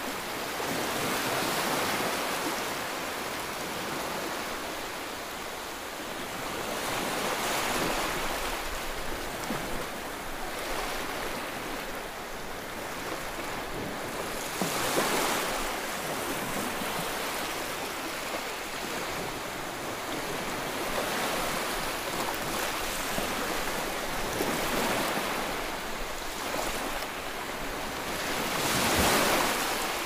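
Rough, choppy waves breaking and washing against a concrete seawall: a continuous rushing that swells in surges every several seconds, the loudest surge near the end.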